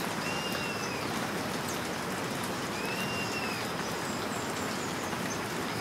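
Outdoor nature ambience: a steady hiss like falling rain or water, with a short arching whistled bird call that comes back about every three seconds.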